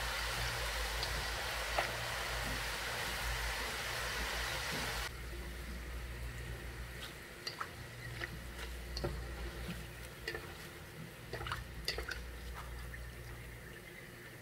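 Tofu-and-flour dough strips deep-frying in oil: a dense, steady sizzle for about five seconds, then a much quieter fizz with scattered crackles and pops as the bubbling dies down with the snacks nearly done. A steady low hum runs underneath.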